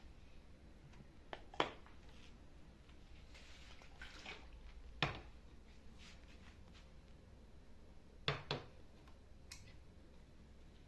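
Kitchenware being handled: a few short, sharp knocks and clicks, the loudest about one and a half, five and eight seconds in, over a faint low hum.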